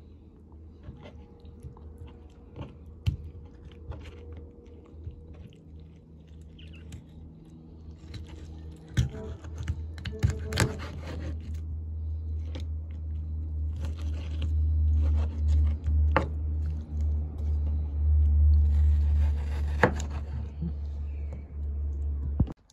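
Kitchen knife cutting raw chicken breast on a wooden cutting board: scattered knocks and scrapes of the blade on the board. A low hum builds from about eight seconds in, is the loudest sound through the second half, and cuts off suddenly just before the end.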